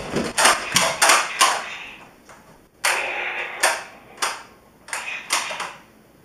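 Nerf foam-dart blaster being worked over and over: a string of sharp plastic clacks and short air puffs, one run about a second long near the start and a second run from about three seconds in.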